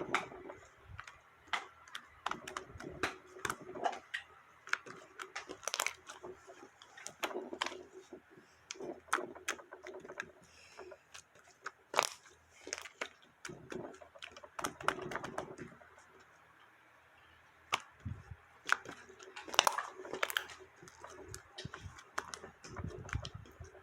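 Slime being squeezed, pressed and stretched by hand, making irregular clicking, crackling and popping sounds with soft squishes in between. The sound pauses briefly about two-thirds of the way through.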